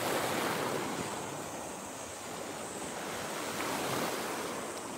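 Small waves washing up over a sandy beach: a steady surf wash that eases off and swells again as the water runs in over the sand.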